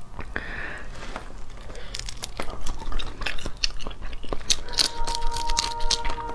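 Cooked prawn shell being cracked and peeled apart by fingers: a run of small sharp crackles and clicks, with a bite near the end as the meat goes to the mouth.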